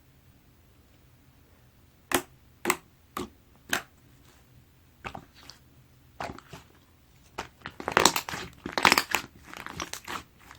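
White slime being handled: four sharp pops about half a second apart, then a few softer ones, and from about seven seconds in a dense run of crackling, squishing pops, the loudest part, as the slime is pressed and worked.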